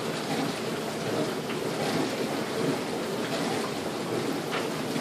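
Steady rushing background noise, even and hiss-like, with a few faint ticks scattered through it.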